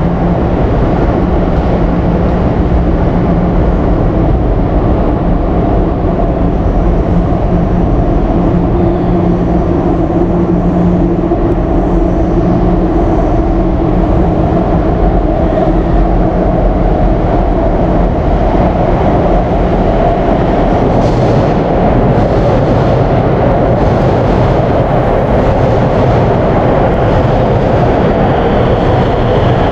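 São Paulo Metro Line 4 train running, a loud steady rumble with several humming tones from its traction motors; a higher whine comes in near the end.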